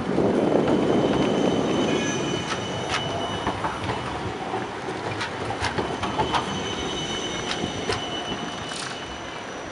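Siemens Combino low-floor tram pulling away and passing close by: the wheels rumble on the rails for the first couple of seconds, then a thin, steady wheel squeal with scattered clicks as the wheels run over rail joints and points. The sound slowly fades as the tram moves off.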